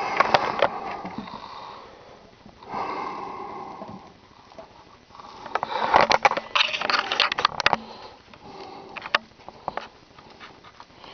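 A person with a head cold sniffing several times, in breathy bursts, with a few sharp clicks and knocks in between.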